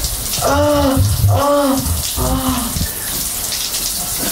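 Shower water running with a steady hiss. A voice makes three short, rising-and-falling sounds in the first three seconds.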